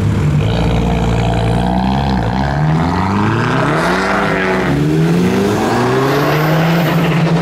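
Car engines at a car meet: one car accelerates away, its engine note climbing, dropping, then climbing again, over another engine idling steadily.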